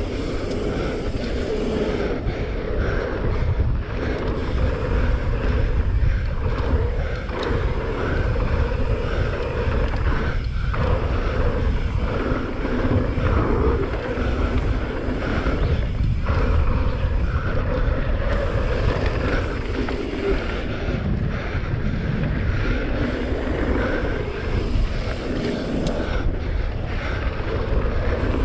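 Wind buffeting an action camera's microphone over the steady rumble and rattle of a mountain bike riding fast down a dirt trail.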